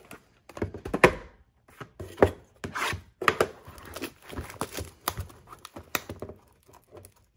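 A shrink-wrapped trading card box knocking against a desk as it is handled, then its plastic shrink wrap crinkling and tearing as it is peeled off, in a string of sharp knocks and rustles.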